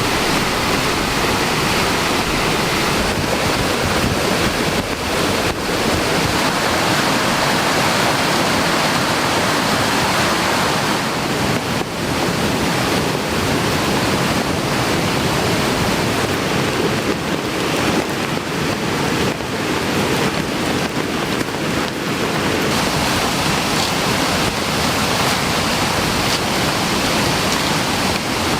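Steady, loud rushing of heavy rain together with a swollen, fast-flowing mountain stream.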